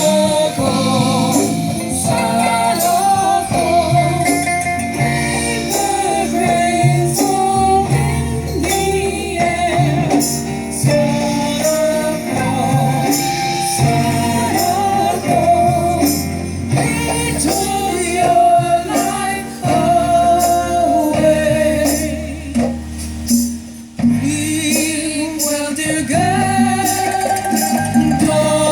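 Music: a sung melody over instrumental backing with percussion, dropping off briefly about 24 seconds in before picking up again.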